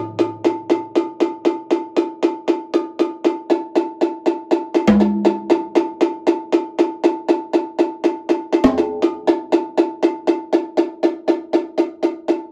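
Multi-percussion solo: a mounted cowbell struck in a steady, even pulse of about three and a half strokes a second, with single drum strokes cutting in about five seconds in and again near nine seconds.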